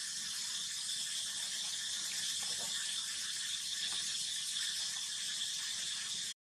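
Steady high-pitched hiss of outdoor background ambience with no distinct events, cutting out abruptly near the end.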